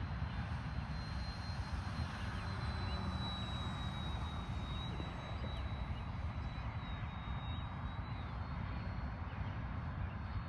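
Electric RC airplane in flight, its 3536 1000kv brushless motor and propeller giving a thin high whine that drifts gently up and down in pitch. The whine sits over a steady low rumble.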